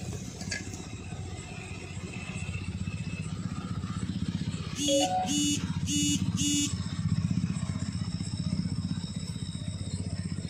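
An engine running steadily with a low, pulsing rumble. About halfway through come four short, evenly spaced beeps.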